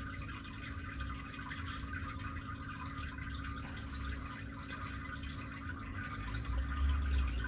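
Turtle tank's water filter running: a steady trickle and drip of water over a low, steady hum.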